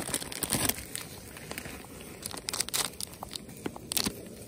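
Plastic food wrapper being crinkled and torn open, a run of sharp irregular rustles.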